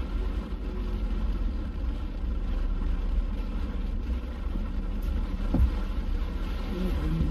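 Steady low rumble of a running vehicle, with a single thump about five and a half seconds in.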